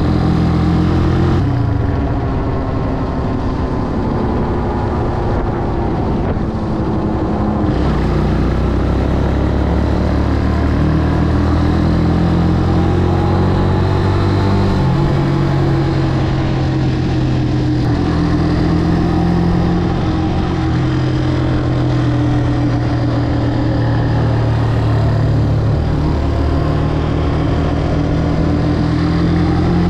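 Italika 200 cc single-cylinder motorcycle engine running under way, its note rising and falling gently with the throttle, over steady road noise.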